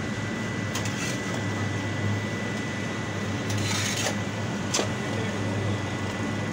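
Steady mechanical hum of a running machine. Over it come a few scrapes and knocks of a shovel digging thick grease sludge out of a septic tank, with a longer scrape about four seconds in.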